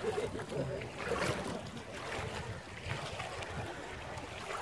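Shallow sea water lapping and sloshing around wooden outrigger boats as people wade beside them, with wind on the microphone.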